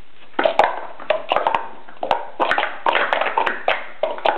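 Plastic sport-stacking cups being rapidly stacked and unstacked: a fast, uneven run of light clacks and rattles as the cups hit each other and the mat, starting about half a second in.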